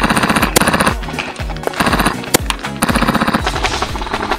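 Airsoft gun firing rapid full-auto bursts, three of them, over electronic music with a heavy kick drum.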